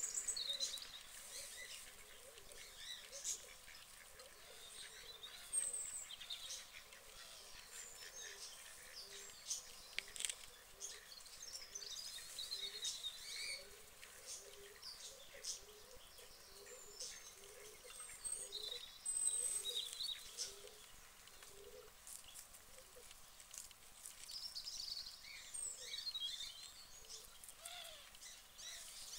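Small birds chirping and twittering on and off, faint, with scattered soft clicks from a guinea pig chewing lettuce.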